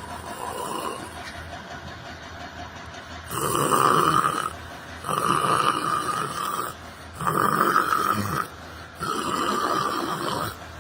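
A person snoring, with a quieter stretch, then a run of about four loud snores starting about three seconds in, each over a second long and coming about every two seconds.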